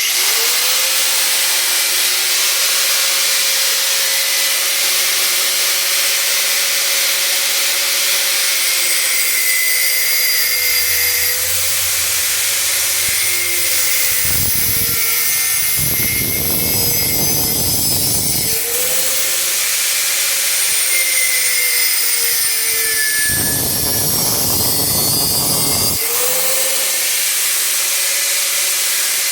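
Electric angle grinder running at speed and cutting into steel rods. Its pitch sags twice, about halfway through and again near the end, as the disc bites under load, with a coarser grinding while it cuts.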